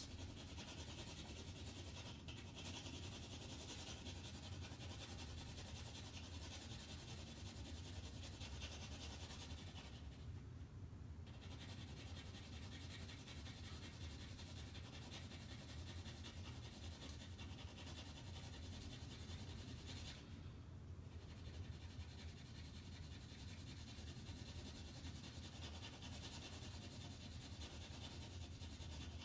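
Graphite pencil scratching quickly back and forth on toothy drawing paper, shading a dark area with short strokes. The strokes pause briefly twice, about ten and about twenty seconds in.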